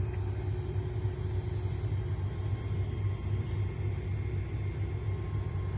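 Steady low rumble of a river towboat's diesel engines as it pushes a string of barges.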